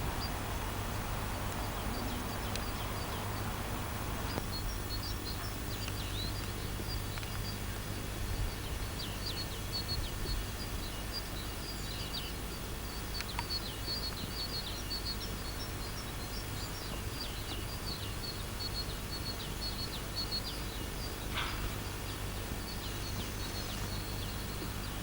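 Small birds chirping in quick, repeated high notes over a steady low hum.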